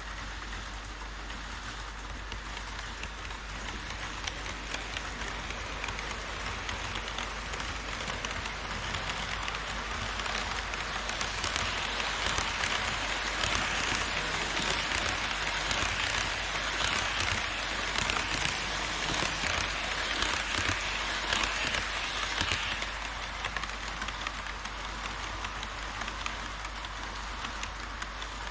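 HO scale model trains running on KATO Unitrack: a dense, fine rattle of metal wheels over rail and track joints. It grows louder for about ten seconds in the middle, then eases off. A steady low hum runs underneath.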